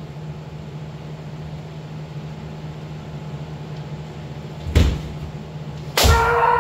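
Kendo sparring: a sharp knock about five seconds in, then near the end a loud impact as a kendoka attacks with a bamboo shinai, followed at once by the start of a long shouted kiai. A steady low hum runs underneath.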